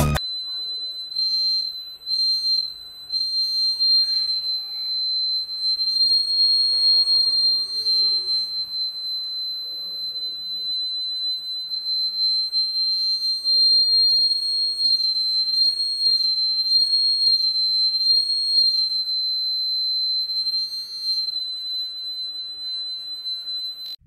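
Piezo buzzer of a one-transistor IR proximity-sensor alarm sounding a steady high-pitched beep: the photodiode is picking up infrared reflected from a nearby object and the transistor drives the buzzer. The tone cuts out briefly a few times near the start and again about three-quarters through, with a fainter low tone underneath that slowly rises and falls in pitch.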